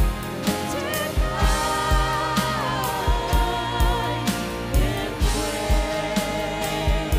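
Live worship band playing: several voices singing together over electric and acoustic guitars and drums, with a kick drum beating steadily about twice a second.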